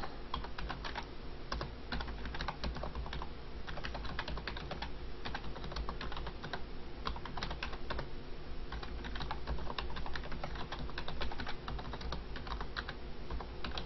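Typing on a computer keyboard: a continuous run of quick key clicks with brief pauses, over a faint low hum.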